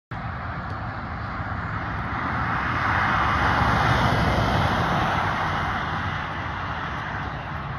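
A police SUV driving past close by: its tyre and engine noise swells to a peak about halfway through and then fades away. No siren is heard.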